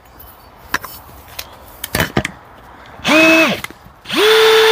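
A few clicks and knocks as an auger bit is fitted into a cordless drill's chuck, then the drill is run free twice: a half-second spin-up and wind-down about three seconds in, then from about four seconds in a steady whine at constant speed.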